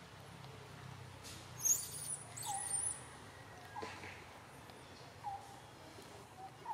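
Macaque monkeys calling: high-pitched, wavering squeals about two seconds in, then short lower calls repeated every second or so.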